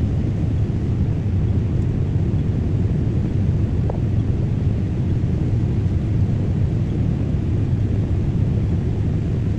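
Steady low rumble of a John Deere S770 combine running while harvesting soybeans.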